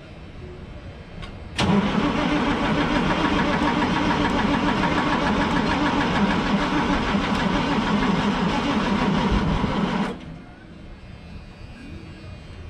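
Starter cranking the GMC cabover truck's Detroit Diesel engine steadily for about eight seconds, then cutting off suddenly without the engine running on. The engine has just been refuelled after the tank feeding its fuel pump ran dry.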